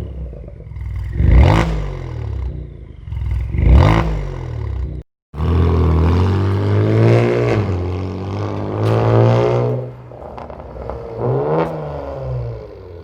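Kia Stinger 3.3 twin-turbo V6 revved through an aftermarket exhaust with a tuned mid-muffler and variable-valve tail section: sharp throttle blips about every two seconds, a brief break, then longer revs rising and falling, and one more blip near the end.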